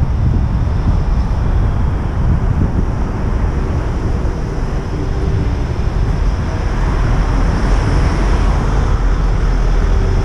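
Wind rumbling on the microphone of a camera riding on a moving bicycle, over city street traffic noise. The hiss swells for a few seconds past the middle as cars go by close.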